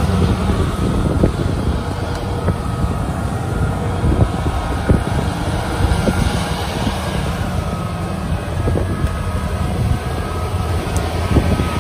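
Kubota DC70 crawler combine harvesters running their diesel engines under load as they climb a muddy field bank on their tracks: a steady heavy rumble with scattered clanks and knocks from the tracks and machinery.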